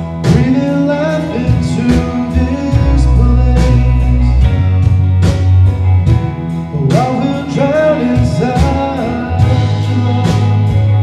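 Live church worship band playing: drum kit keeping a steady beat over bass and electric guitar, with a voice singing a melodic line that grows stronger about two-thirds of the way through.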